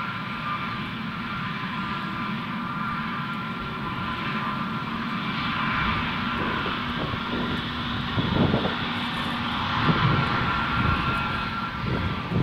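Airbus A320neo's Pratt & Whitney PW1100G geared turbofans running at taxi power as the airliner taxis: a steady high whine over a rushing hiss, with a few louder low rushing bursts in the second half.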